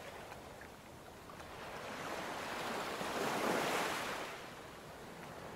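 Ocean waves: a wash of surf that swells to a peak about three and a half seconds in, then draws back.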